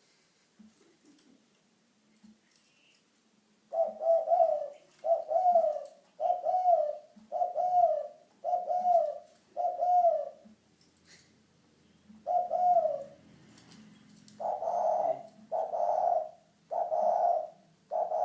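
Spotted dove cooing: a run of low, repeated coos, about one a second, beginning about four seconds in, with a short break midway.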